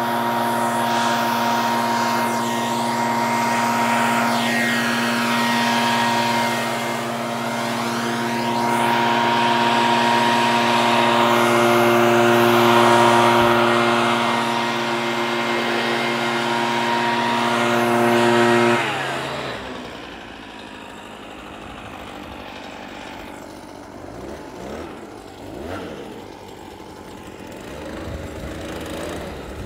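Leaf blower running at a steady pitch, then shut off about two-thirds of the way through; its note sinks as it stops, leaving only fainter outdoor noise.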